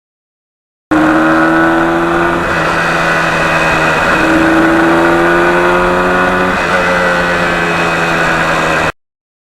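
Yamaha RD400's two-stroke parallel-twin engine pulling under acceleration, its pitch climbing slowly and dropping back at gear changes about 2.5, 4 and 6.5 seconds in. It starts and cuts off abruptly.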